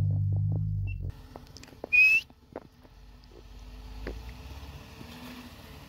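An off-road vehicle's engine runs steadily, then drops off about a second in. About a second later comes a short, loud, slightly rising whistle, followed by scattered light clicks over a faint idle.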